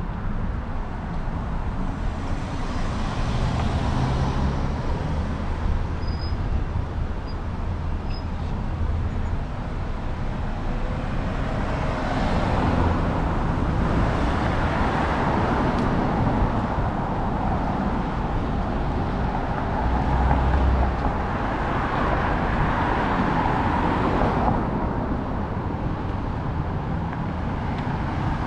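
Road traffic: cars passing in a steady wash of tyre and engine noise, swelling louder as vehicles go by about halfway through and again near three quarters through.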